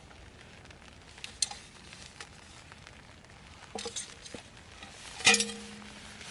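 Light metal knocks, then about five seconds in a louder metallic clank that rings on briefly, over a faint steady hiss.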